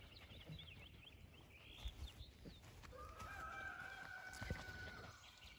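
A rooster crowing faintly: one long call of about two seconds, starting about three seconds in, rising at first and then held. Small birds chirp faintly near the start.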